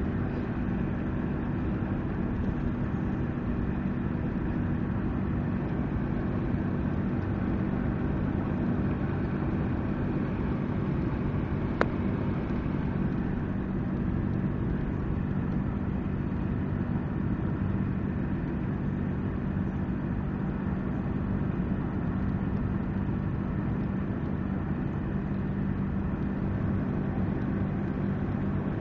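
A vehicle engine running steadily at idle, with one sharp click about twelve seconds in.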